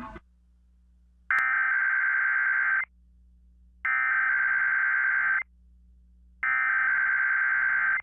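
Emergency Alert System SAME header data tones: three identical bursts of warbling digital tones, each about a second and a half long with a pause of about a second between them. They are the coded header that opens an EAS required weekly test broadcast on KDKA radio.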